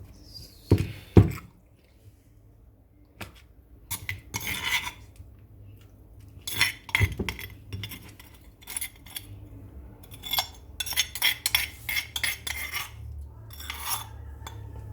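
Kitchen utensils and dishes clinking and scraping in irregular bursts, with two heavier knocks about a second in: handling the freshly pounded ginger, garlic and seed mixture.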